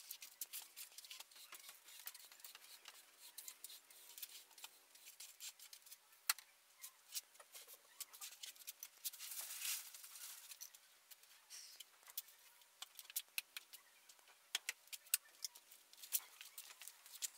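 Irregular light clicks, ticks and scuffs of feet and grit on a concrete floor, with a brief scraping rush about ten seconds in.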